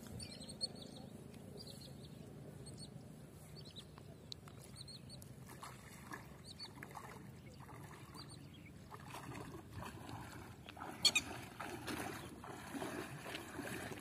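Water sloshing and splashing as a man wades through a shallow pond, starting about five seconds in and growing busier toward the end, with one sharp slap of water about eleven seconds in.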